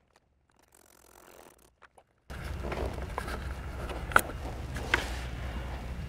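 Near silence with a few faint ticks, then, after an abrupt change about two seconds in, a steady low hum of room noise with a few sharp clicks and knocks, the loudest a little past four seconds and another near five seconds.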